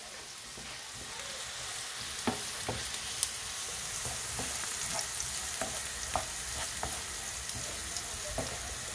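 Diced potatoes, red onion and green chilies sizzling in oil in a frying pan, with a steady hiss and the clicks and scrapes of a wooden spatula against the pan as they are stirred.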